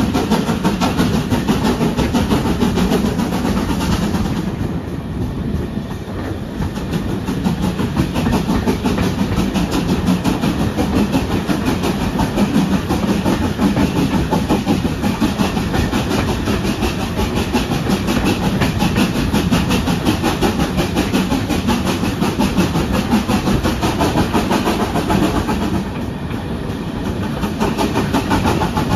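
Passenger coach running along the track, its wheels rumbling and rattling on the rails, heard from an open carriage window with the rush of the moving air. The sound eases briefly about five seconds in and again near the end.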